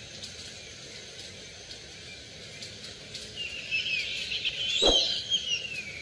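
Red-fan parrots (hawk-headed parrots) giving a burst of chattering, gliding calls that starts about halfway through and is loudest near the end, over a steady background hiss. A single sharp knock is heard near the end.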